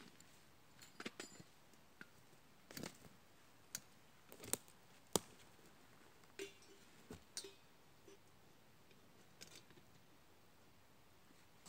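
Scattered light clicks and knocks from handling a metal camping kettle, its handle and lid clinking as it is carried and set down, along with steps and small twig snaps on the forest floor. The sharpest click comes about five seconds in.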